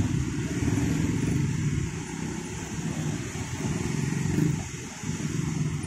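Many small motorcycle and scooter engines running and pulling away together, rising and falling as traffic moves over the crossing.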